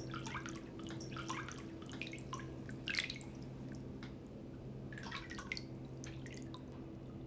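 Steady low hum of room tone with soft, irregular wet-sounding clicks and ticks scattered through it.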